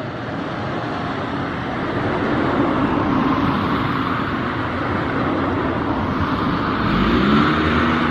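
Road traffic noise: motor vehicles running past, the sound swelling over the first few seconds, with an engine's pitch rising near the end.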